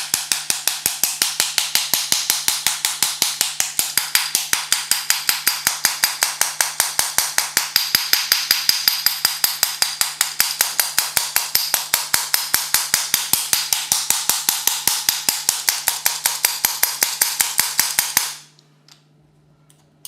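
Rapid, steady tapping on the small electric motor of a Renault Scenic electric parking brake, about six sharp metallic taps a second, stopping suddenly near the end. The tapping is to shake dust and debris out of a motor suspected of having worn brushes.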